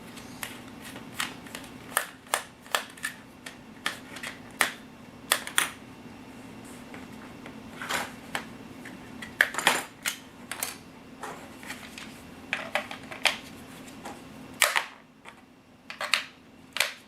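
Irregular sharp clicks and taps of a screwdriver and fingers working the small Phillips battery-cover screw and plastic cover of an RC transmitter.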